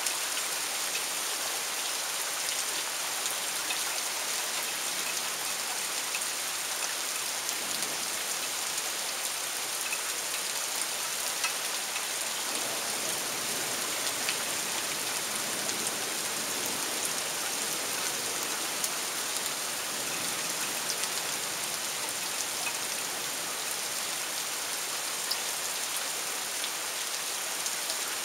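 Torrential rain falling steadily: a dense, even hiss with scattered ticks of drops hitting nearby surfaces.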